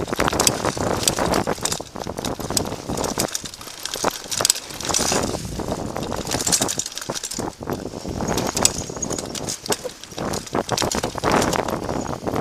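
Chumba Evo mountain bike ridden fast on singletrack trail: a continuous rattling, clattering ride noise full of quick clicks and knocks, with tyre rumble and wind noise.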